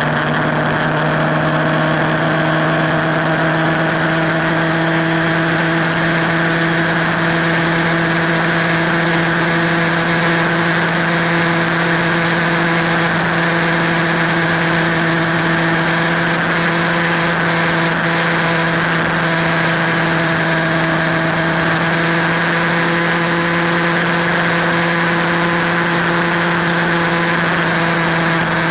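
Motorcycle engine running at a steady cruising speed on the highway, its drone rising slightly in pitch about a second in and then holding even, over a constant rush of wind and road noise.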